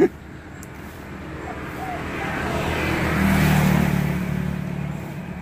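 A motor vehicle engine passing by: it grows louder for about three seconds, peaks past the middle, then fades away. A single sharp knock at the very start.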